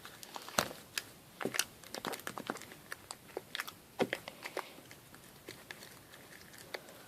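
Homemade slime being mixed and kneaded as it firms up after baking soda is added: scattered sticky clicks and crackles at an irregular pace.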